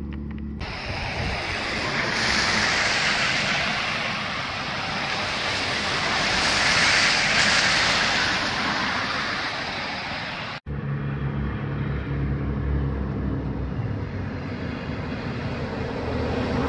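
Traffic passing on a wet, sleet-covered street: tyre hiss swelling and fading twice as cars go by. After an abrupt break about ten and a half seconds in, steadier noise over a low hum.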